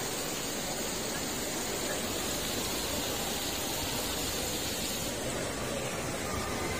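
Indoor tiered marble ablution fountain (şadırvan), water spilling from its bowls into the basin as a steady splashing hiss.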